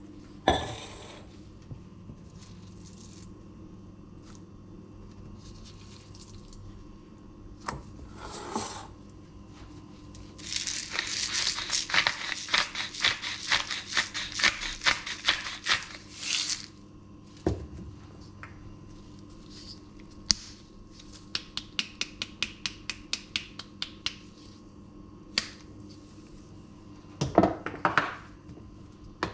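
Hand-twisted salt grinder milling salt over a stainless steel bowl of steak: a dense run of rapid crackling clicks lasting about six seconds. Later comes a row of sharp, evenly spaced clicks, about four a second, and near the end a cluster of knocks and rustles as the meat is handled in the bowl.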